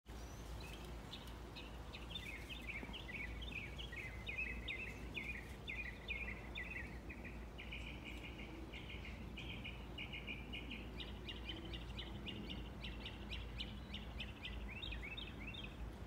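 Birds chirping, many at once: a dense, unbroken run of short, high notes, over a low steady rumble.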